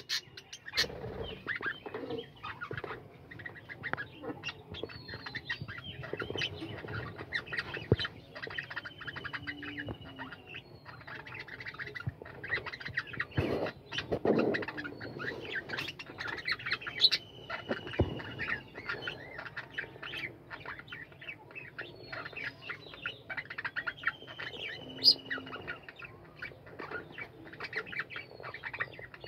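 A flock of budgerigars chattering continuously in a colony aviary: dense rapid chirps and warbles, with a few drawn-out falling whistles now and then.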